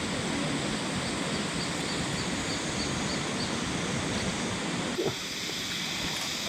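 Mountain river flowing, a steady rush of water. In the first half a run of about eight short, faint, high peeps comes at about three a second, and about five seconds in the sound changes abruptly.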